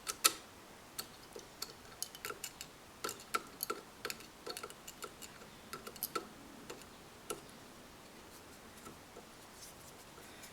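Irregular sharp clicks and taps of small hard faucet parts being handled and fitted together during reassembly. The two loudest come right at the start; the clicks thin out after about seven seconds.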